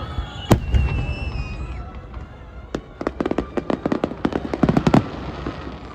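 Aerial fireworks bursting in a grand finale: one loud bang about half a second in, then a rapid volley of bangs from about three to five seconds, over a continuous low rumble of further explosions.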